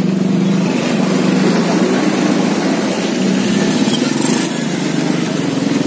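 A small engine running steadily at an even speed, with no rise or fall in pitch.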